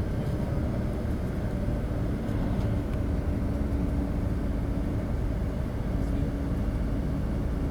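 Steady low drone of a tour bus's engine and road noise heard from inside the moving cabin, with a faint even hum.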